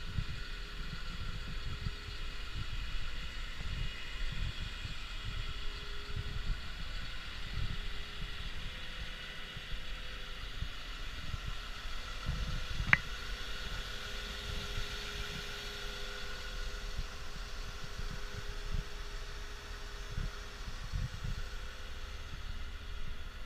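CAT 938K wheel loader's diesel engine idling steadily with its fan running, with wind buffeting the microphone. A single sharp click about 13 seconds in.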